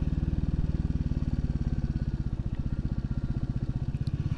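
Royal Enfield Classic 350's single-cylinder engine running steadily while the motorcycle is ridden, an evenly pulsing exhaust beat with no revving.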